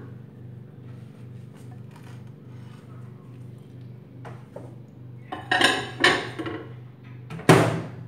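Glass baking dish of cut vegetables clattering as it is handled and set into a microwave oven, a few knocks building to a clatter halfway through, then one sharp knock near the end, the loudest sound, as the oven door is shut.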